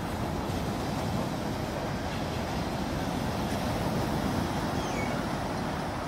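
Steady rushing water, an even continuous noise with no breaks or separate strikes.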